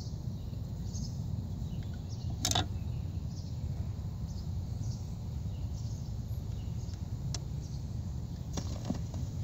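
Portable record player spinning a 45 rpm single before the song starts: a steady low rumble with faint hiss and a few short clicks, the sharpest about two and a half seconds in.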